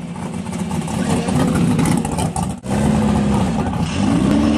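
Car engines running and being revved, with voices in the background. Partway through the sound changes abruptly to a close engine holding a steady pitch that dips and climbs again as it is revved.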